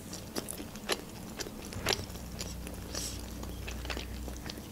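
Close-up mouth sounds of a person chewing pan-fried pelmeni: small wet clicks and smacks, with two sharper clicks about one and two seconds in.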